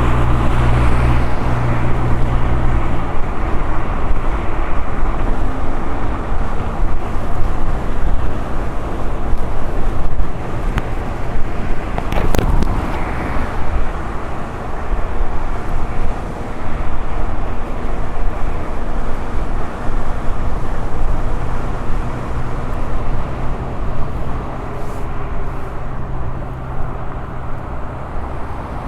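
Wind rumble on the microphone and road noise while riding a Blitz electric unicycle, with one short sharp noise about twelve seconds in.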